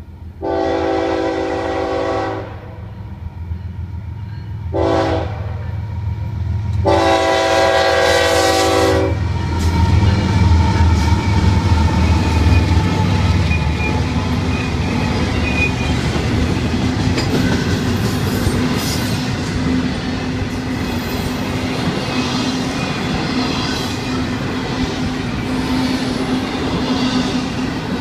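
Florida East Coast GE ES44C4 diesel locomotives sounding their horn for a grade crossing: a long blast, a short one, then another long one. The locomotives then pass loud and low about ten seconds in, followed by the steady rolling clatter of intermodal container and trailer cars over the rails.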